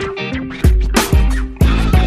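Background music with a steady beat: a strong low thump about twice a second under a held bass line and layered instrument tones.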